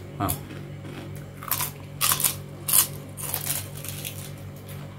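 Crunchy homemade cassava chip (kripik singkong) being bitten and chewed: several sharp crisp crunches in the first three seconds, then fainter chewing crunches.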